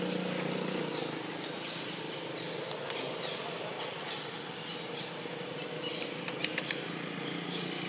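A steady low engine hum, with a few faint sharp clicks about three seconds in and again near the end.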